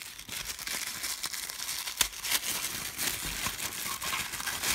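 Tissue paper crinkling and rustling as hands unwrap a small candle tin, with a sharp crackle about two seconds in.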